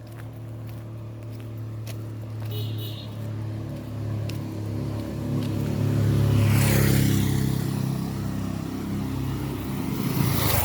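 A motor vehicle's engine hum growing louder as it passes close by, loudest about six to seven seconds in with a rush of tyre and road noise. Another swell of traffic noise comes near the end.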